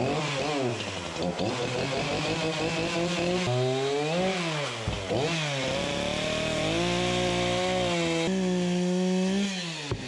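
Echo two-stroke chainsaw engine running, revved up and down several times with the throttle, holding a steady speed for stretches in between.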